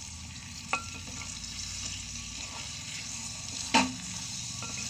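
Chicken fry sizzling steadily in a steel pot on the stove as it is stirred, with a spoon knocking against the pot twice, about a second in and near the end, the second knock louder.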